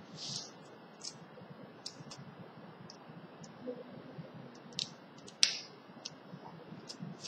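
Small scattered clicks and taps of screws and board parts being handled and fitted, irregular, with a sharper click about five and a half seconds in.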